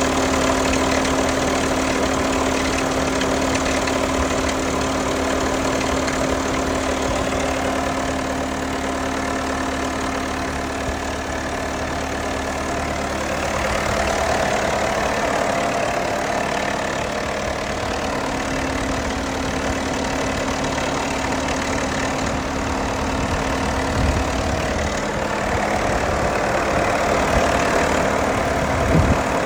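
2021 Jeep Wrangler JL's 2.0L turbocharged four-cylinder engine idling steadily after a cold start, with a rattle that the dealer cured by replacing both tensioners.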